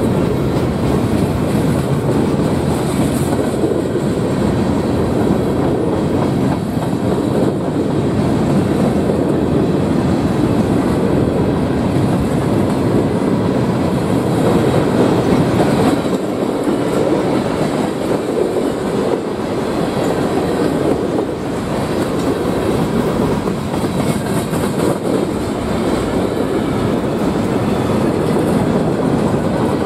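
Freight train cars rolling past, a steady, continuous noise of steel wheels on rail.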